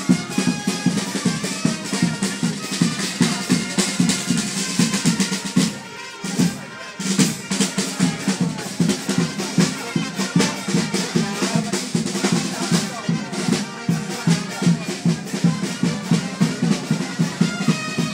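Music with drums beating a quick, steady rhythm, dipping briefly about six seconds in.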